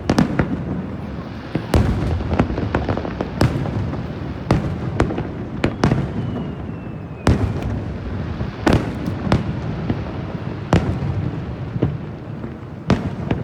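Aerial fireworks bursting over the sea: about a dozen sharp bangs at uneven intervals over a continuous low rumble of overlapping blasts, each bang trailing off in a reverberating tail. A faint falling whistle sounds about six seconds in.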